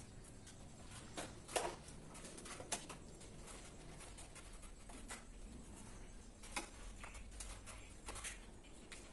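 Scattered small clicks and scrapes of a screwdriver and plastic miniature circuit breakers being worked in a distribution board, the sharpest about one and a half seconds in.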